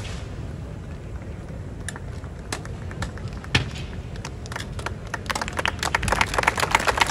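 Rifle drill: a few sharp clacks of rifles being handled over a steady low outdoor rumble, then a rapid, dense clatter building near the end.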